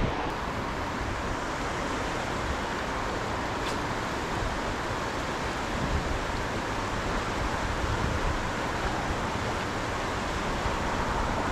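Steady rush of a fast-flowing river running over a shallow riffle.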